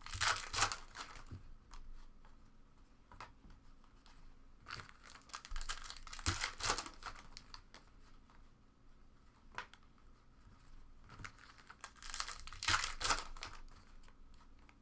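Trading card pack wrappers being torn open and crinkled, in three bursts of crackling: at the start, around six seconds in, and around twelve to thirteen seconds in, with faint rustling between.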